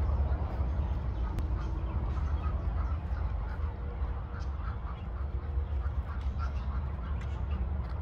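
Birds calling in short, repeated notes over a steady low rumble.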